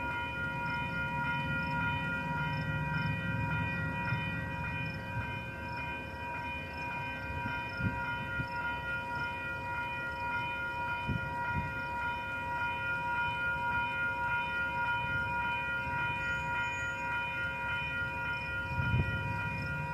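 A freight train of autorack cars creeping past, with a low rumble and a few clunks, the loudest near the end. A set of steady high ringing tones holds throughout.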